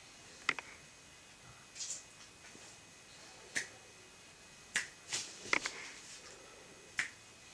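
Finger snaps: about six sharp single clicks at irregular intervals, a few seconds apart at first and then closer together. They are faint, over quiet room tone.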